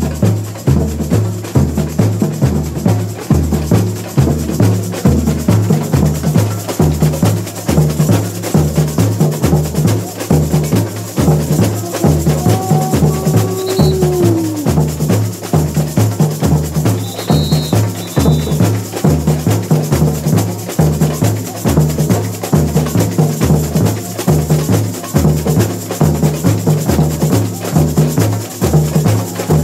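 Samba bateria playing a steady batucada: surdo bass drums beat an even pulse that alternates between a lower and a higher drum, under busy, dense higher percussion.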